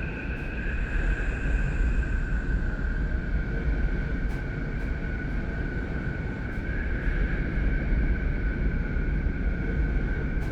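Space sound presented as the "voice" of planet Neptune: a deep, steady rumbling noise with two steady high tones held over it and a few faint ticks.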